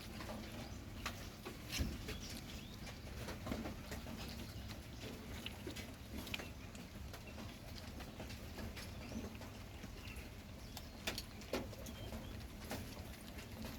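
A puppy eating: irregular small clicks and smacks of chewing and licking over a low background rumble.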